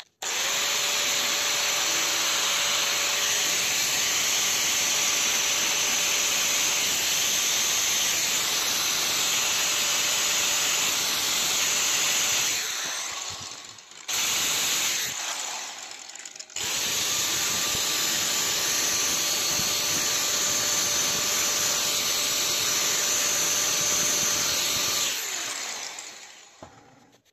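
Angle grinder with a thin cut-off disc running with a steady whine as it grinds V-grooves along cracks in an ABS plastic panel, beveling them for plastic welding. It is let off and restarted a couple of times around the middle and winds down near the end.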